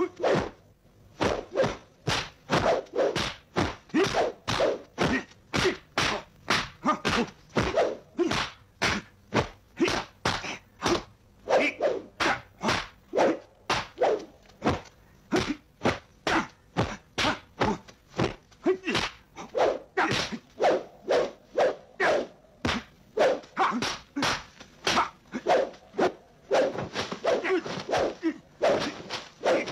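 Dubbed kung-fu fight sound effects: a fast, steady run of sharp wooden clacks and thwacks from staff strikes, blocks and blows, about two hits a second with only brief pauses.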